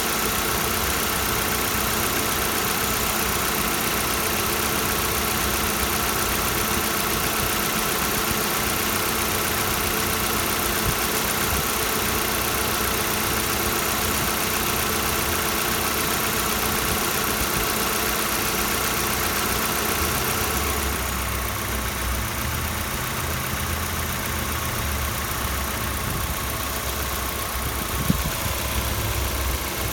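Kia Soul 1.6 engine idling cold, with the knocking the owner is recording as a cold-engine fault. About two-thirds of the way through, the higher hiss fades and a deeper rumble comes up, and near the end there is a single sharp click.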